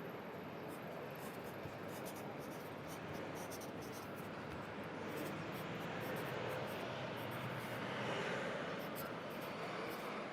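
Pencil writing on paper, short irregular scratchy strokes, over a steady hum of city traffic.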